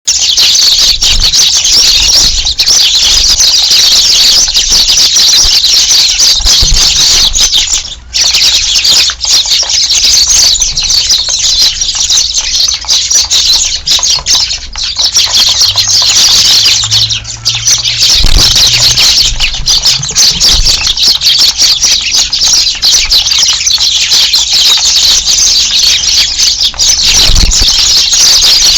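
A big flock of Eurasian tree sparrows chirping all at once in a dense, unbroken din, dipping for a moment about eight seconds in.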